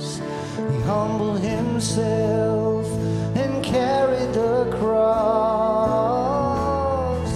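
Live worship band playing a slow song: a male voice sings the melody over strummed acoustic guitar and drums, with cymbals splashing now and then.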